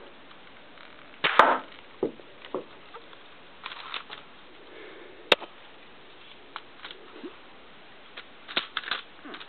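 Plastic clicks and rattles of K'nex pieces as the K'nex bolt-action gun is handled and loaded: scattered sharp clicks, with a louder rattling burst about a second in and a quick run of clicks near the end.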